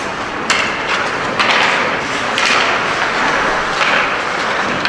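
Ice hockey rink during play: a steady crowd and arena din with about four sharp knocks, such as pucks and sticks striking the boards, each leaving a short echo.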